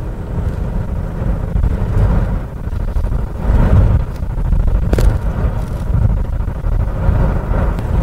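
Inside the cabin of a 2016 Honda Pilot with a 3.5-litre V6 cruising at about 50 mph: a steady low rumble of road and engine noise as it gathers speed, the engine running smoothly now that the fault is repaired. A single sharp click about five seconds in.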